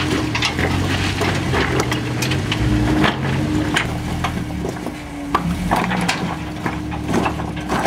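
Jeep Wrangler YJ crawling up a boulder ledge: its engine runs steadily under load, while tyres and chassis knock and scrape against rock many times.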